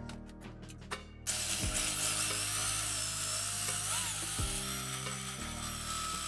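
Power drill boring into a cast-iron brake disc: from about a second in, the bit cutting the metal gives a steady, loud, high-pitched whine with a wavering squeal in it.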